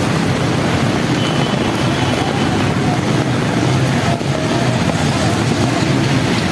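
Road traffic on a rain-soaked street: cars and motorcycles driving through water with steady tyre hiss and engine noise, under heavy rain.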